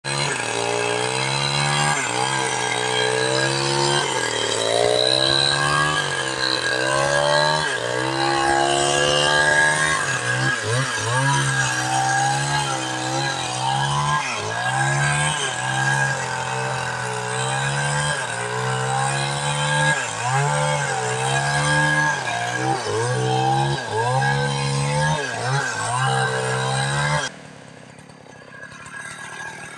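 Chainsaw engine running loud, its pitch wavering up and down as it works. It drops away abruptly near the end.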